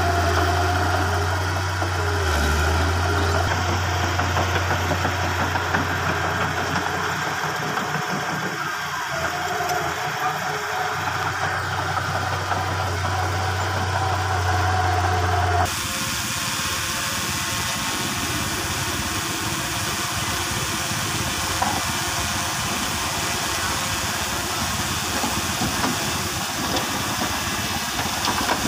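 Diesel engine of a small crawler bulldozer and dump trucks running steadily while earth is pushed and filled. About halfway through the sound changes abruptly from a steady low hum with a held tone to a rougher, noisier rumble.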